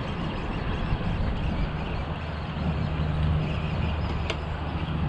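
Steady rushing noise of traffic on the bridge, with a low engine drone that swells about three seconds in and fades again.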